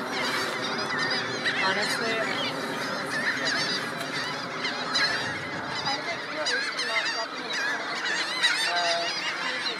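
Dense chorus of a nesting black skimmer and gull-billed tern colony: many short calls overlapping without a break.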